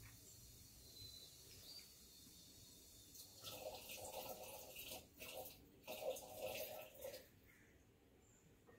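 Water poured from a bamboo ladle (hishaku), splashing and trickling in two short stretches about three and a half seconds in, with a brief break between them, then stopping a little after seven seconds.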